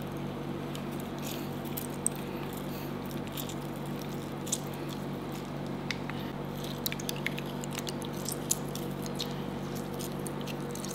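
Faint wet squishing and small clicks of food being squeezed by hand, over a steady low hum.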